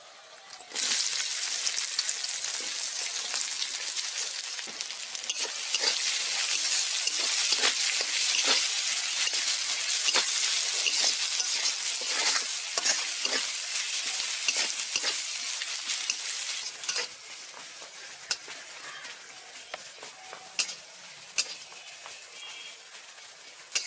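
Chopped onions hitting hot mustard oil in a kadai and sizzling as they fry, stirred with a spatula that scrapes the pan in repeated strokes. The sizzle drops off after about seventeen seconds, leaving a few clinks of the spatula.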